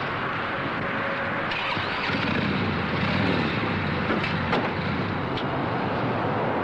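Motorcycle engine running as the bike rides off, with its pitch rising and falling and getting a little louder about two seconds in.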